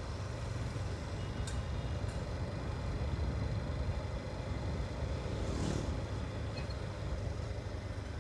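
Motorcycle running along at riding speed: a steady low rumble of engine and road noise with wind on the microphone, and a brief hiss about five and a half seconds in.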